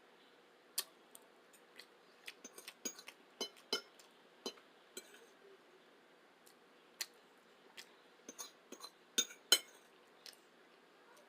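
Close-miked eating sounds: an irregular scattering of sharp clicks and clinks, the loudest a short cluster about nine seconds in.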